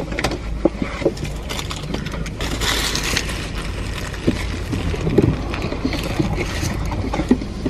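Paper food wrappers crinkling and people chewing, with a louder rustle about three seconds in, over the low steady hum of a car interior.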